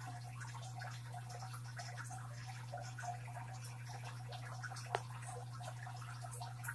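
Aquarium water bubbling and trickling at the surface, with small drips and splashes over a steady low motor hum. One sharp click about five seconds in.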